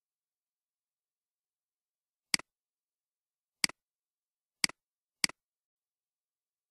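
Near silence broken by four sharp computer mouse clicks, each a press followed by a softer release, the first about two seconds in and the rest about a second or less apart.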